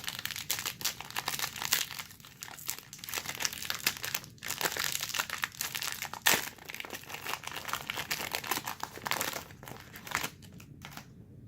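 Plastic wrapper of a trading-card pack being crinkled and torn open, a dense crackling that dies away about ten seconds in.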